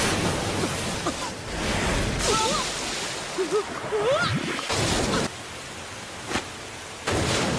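Anime sound effects of rushing, splashing water that come in several surges, with a boy's short yelp of "Yikes!" about four seconds in.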